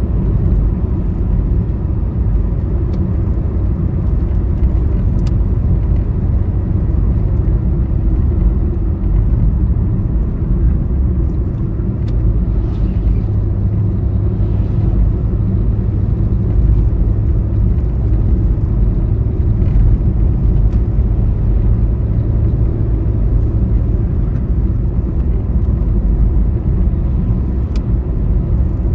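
A vehicle driving steadily along a highway, with an even low rumble of engine and tyres on the road and a few faint ticks.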